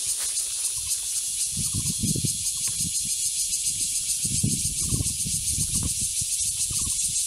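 Dense insect chorus: a steady, high-pitched buzzing hiss with a very fast pulse. Low muffled rumbles break in a few times, about two seconds in and again around the middle.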